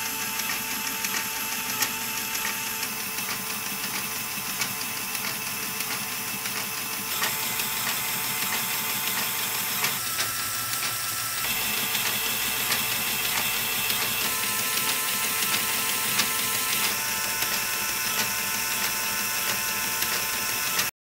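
Lego Technic binary counter running under a Lego electric motor: a steady whir of motor and gears with a rapid patter of small clicks as the reels step round and the digits click over. The tone shifts a few times, and the sound cuts off suddenly near the end.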